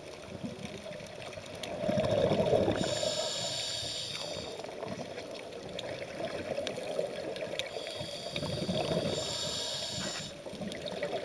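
Scuba diver breathing through a regulator underwater: the hiss of each inhalation alternates with the rumble of exhaled bubbles. There are two slow breaths, and the loudest bubbling comes about two seconds in.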